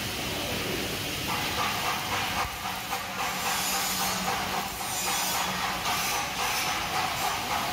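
Electric arc welding on steel tubing: a steady crackling hiss that thickens about a second and a half in, as the arc settles into the weld.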